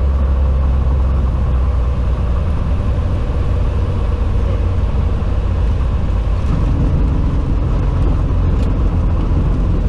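Cessna 182T's six-cylinder Lycoming engine and propeller running throttled back for landing, a steady drone with a rush of air over the cowling, as the plane floats over the runway just before touchdown.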